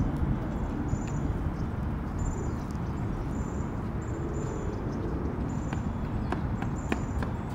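Outdoor ambient noise: a steady low rumble, with a short high chirp repeating about once a second.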